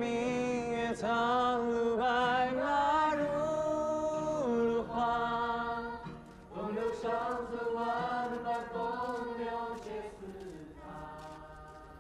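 Wordless singing in long held, wavering notes over several phrases, fading away near the end as a song closes.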